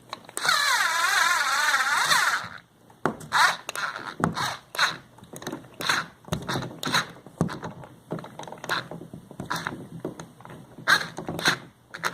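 Cordless screwdriver's motor running for about two seconds, its pitch wavering as it drives an outlet's terminal screw down, with the battery dying. After that come irregular small clicks and knocks.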